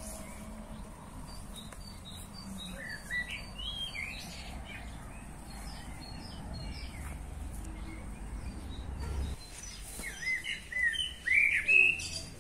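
Birds chirping in short, quick, rising-and-falling calls, in two bouts: one about three seconds in and a louder one near the end. A low rumble underneath stops suddenly a little after nine seconds.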